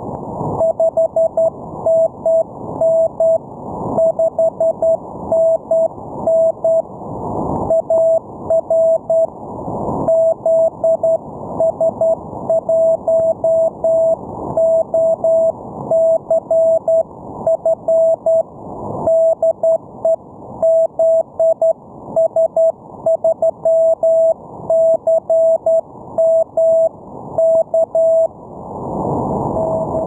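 Morse code (CW) signal received on an amateur radio receiver: a single mid-pitched tone keyed on and off in dots and dashes, with band hiss behind it. The hiss swells up in the gaps between characters and words.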